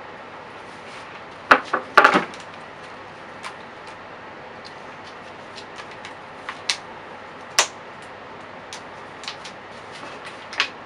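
Knocks and clicks of a handheld electric jigsaw being handled on a plywood board, its motor not running: a cluster of loud knocks about one and a half seconds in, then scattered lighter clicks, over a steady hiss.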